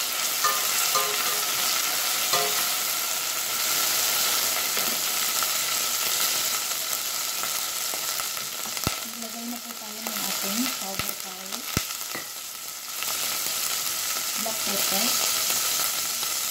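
Sliced onion, garlic and ginger sizzling steadily in hot oil in a stainless steel pot while being sautéed, with a ladle stirring and tapping against the pot a few times in the second half.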